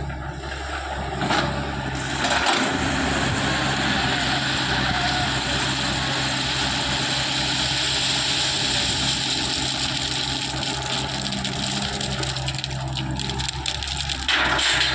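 Diesel engine of an earthmoving machine running steadily.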